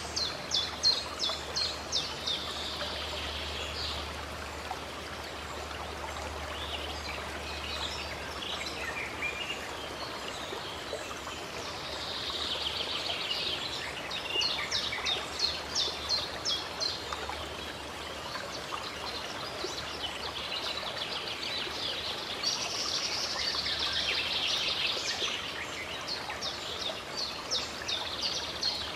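Songbirds singing in runs of quick repeated high notes, three bouts, over the steady rush of a flowing stream.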